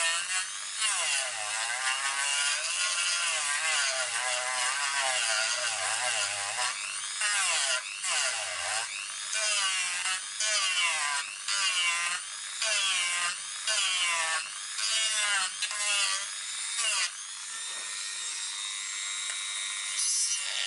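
Dremel rotary tool with a sanding drum grinding away a plastic RC car chassis: a high whine whose pitch sags and rises as the drum is pressed in and eased off. After the first third it comes in short passes about a second apart, then runs steadier near the end.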